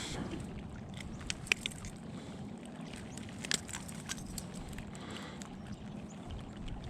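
Water lapping and sloshing against a kayak hull, with a few short clicks and taps.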